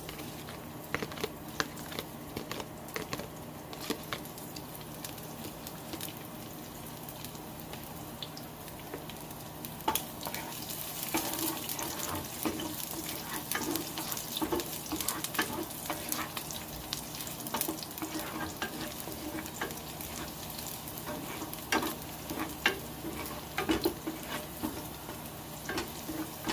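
Garlic sizzling as it sautés in hot oil in a pan, with a spatula scraping and tapping the pan as it is stirred; the scraping and clicks come thicker from about ten seconds in.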